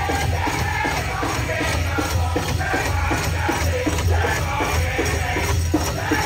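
Powwow drum group playing a big drum in a steady, even beat while singers carry the song, with the shaking metallic jingle of dancers' bells and jingles over it.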